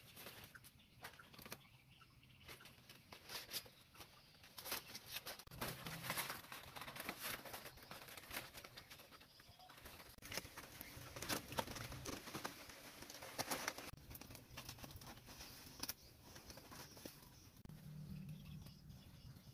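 Palm-leaf strips rustling and crackling as they are handled and woven by hand, with many crisp little snaps and clicks, busiest in the middle.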